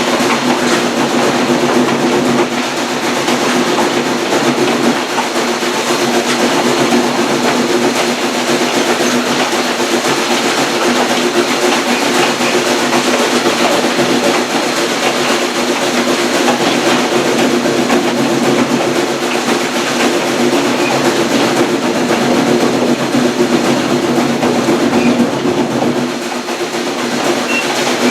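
Passenger train rolling along the track, heard from aboard a coach: a steady rolling noise with a constant low hum, changing slightly near the end.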